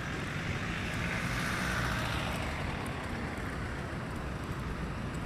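Road traffic on a busy street: a steady rush of tyres and engines with a low rumble, swelling for a moment about a second in.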